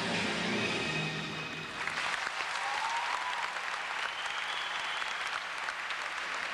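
Accompanying music that stops about two seconds in, followed by an audience applauding.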